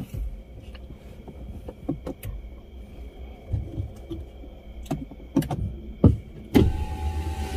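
Car cabin sounds: scattered light clicks and knocks as the gear lever is handled, over a faint low rumble. About two-thirds in, a sudden, louder, steady mechanical sound starts with a low rumble and a hum, and it keeps going.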